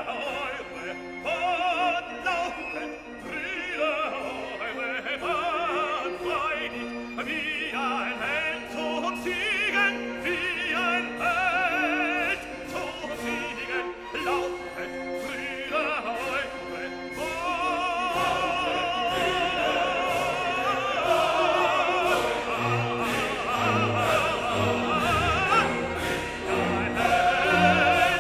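Classical music: an operatic voice singing with strong vibrato over an orchestra.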